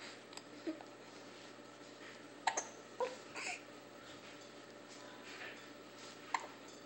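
Hiccups: about five short, sudden squeaky hics at irregular spacing, the loudest bunched together two and a half to three and a half seconds in, with one more near the end.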